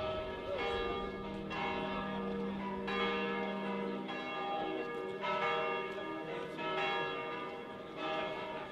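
Church bells ringing, a fresh stroke roughly every second, each one ringing on under the next.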